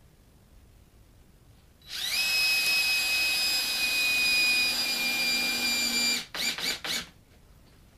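Cordless drill driving a long wood screw through a door-jamb strike plate into the framing: the motor runs steadily for about four seconds, then gives three short pulses as the screw is seated.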